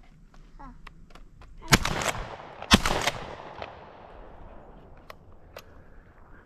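Shotgun shots at doves: a quick volley, the two loudest reports about a second apart, each trailing off in a long rolling echo.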